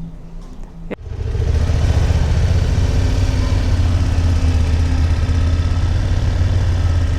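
Motorcycle engine running with a steady low drone, starting abruptly about a second in after a sharp click.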